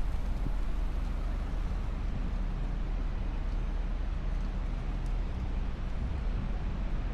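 Steady city road-traffic noise: a continuous low rumble of passing cars and buses.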